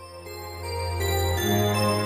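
Background music fading in, with sustained keyboard-like chords over a steady bass note that shifts about one and a half seconds in.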